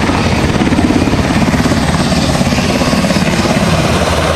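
Military helicopter in flight: rapid, steady beating of the main rotor blades over the whine and rush of the turbine engines.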